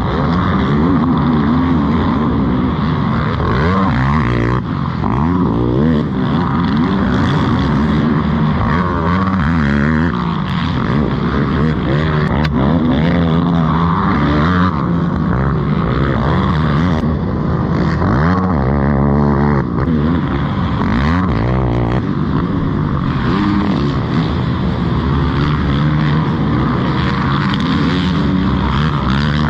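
Yamaha YFZ450R race quads' single-cylinder four-stroke engines revving hard, their pitch rising and falling again and again as the riders work the throttles and shift through the gears, with more than one engine heard at once.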